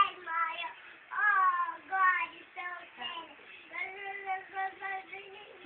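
A young girl singing on her own in short phrases, with a string of short held notes in the second half.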